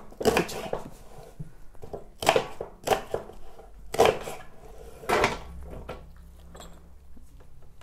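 Kitchen knife chopping a peeled onion on a wooden cutting board: a few sharp strokes spaced roughly a second apart, then it stops about five seconds in.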